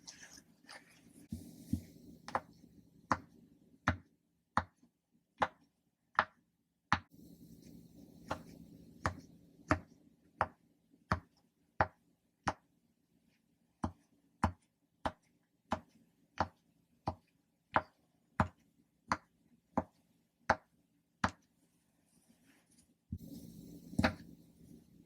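Ocean-animal popper toys being popped in a steady run, about one and a half sharp pops a second. The popping stops a few seconds before the end, giving way to handling noise with one last pop.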